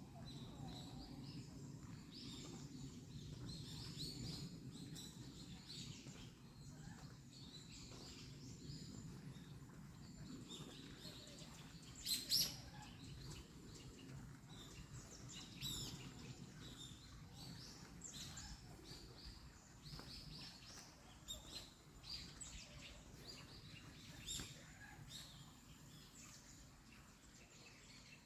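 Forest birds chirping and calling, many short high calls scattered throughout, the loudest about twelve seconds in, over a faint steady low rumble.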